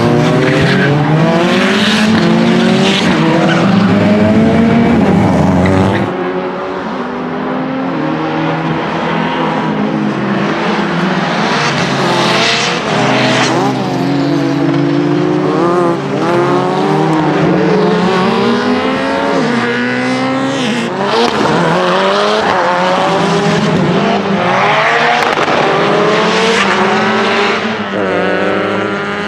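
Lancia Delta HF Integrale EVO Proto's turbocharged 2.0-litre four-cylinder engine revving hard, its pitch climbing and dropping again and again as the sequential gearbox shifts, with tyres squealing as the car slides through corners.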